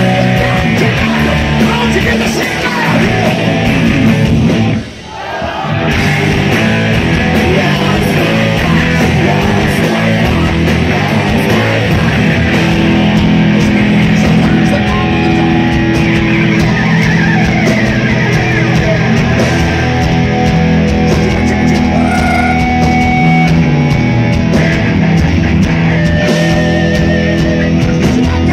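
Live hard rock band playing at full volume: distorted electric guitars through amp stacks, bass and drums. About five seconds in the band stops dead for a split second, then crashes back in.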